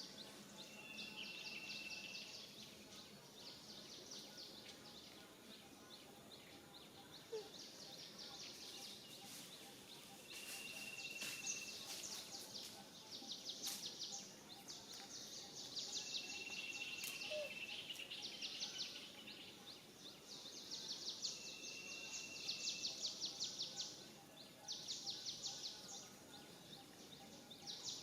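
Faint outdoor natural ambience: a high, rapidly pulsing buzz comes and goes in phrases of a second or two. A short, steady, high whistled call repeats about every five seconds.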